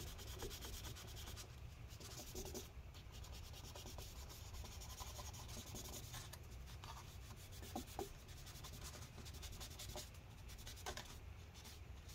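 Paper towel wet with rubbing alcohol being rubbed back and forth over the metal battery bay of a MacBook Pro, scrubbing off old battery adhesive residue. A faint, steady scratchy rubbing with small irregular ticks.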